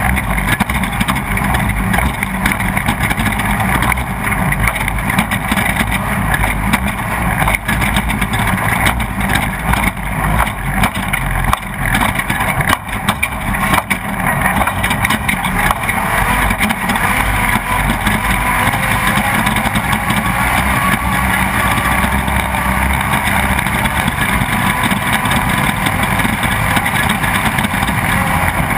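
Off-road race vehicle's engine running hard at speed, heard from onboard, with frequent short knocks and rattles as it crosses rough ground.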